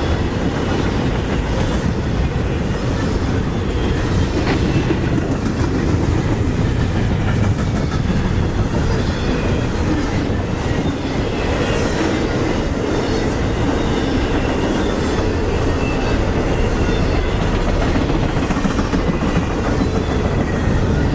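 Intermodal freight train cars rolling past at a steady pace: a continuous rumble and clatter of wheels on rail, with faint wheel squeals now and then.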